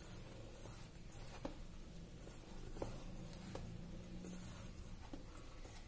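A hand mixing sliced onions into gram flour and rice flour in a steel bowl: soft, patchy rustling and squishing as the mixture is pressed and turned, with a few light ticks against the bowl.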